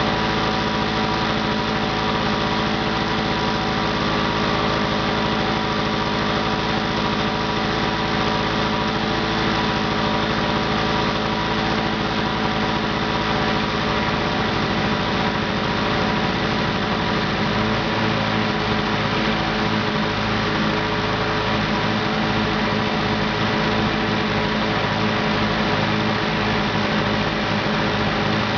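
Lawn-Boy two-stroke lawn mower engine running steadily after a cold start; about two-thirds of the way through, its low note turns uneven and pulsing.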